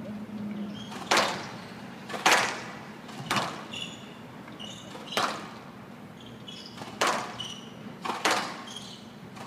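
Squash rally: about seven sharp cracks as the ball is struck by rackets and hits the court walls, roughly one a second, with short high-pitched shoe squeaks on the court floor between shots.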